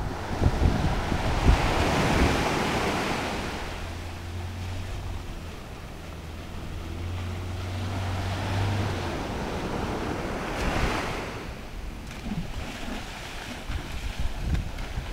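Surf washing up a beach, swelling twice, with wind buffeting the microphone. Under it, the low steady hum of a small boat's outboard motor runs and stops about nine seconds in.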